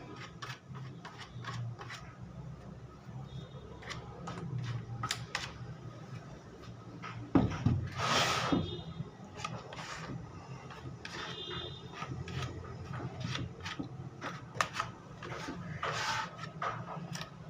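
Scattered light clicks and knocks, with one louder scraping clatter about seven and a half seconds in, over a steady low hum.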